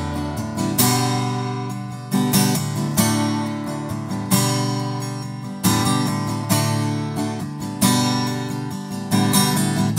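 Solo acoustic guitar strummed, chords ringing, with a strong strum roughly every second and a quarter and lighter strokes between.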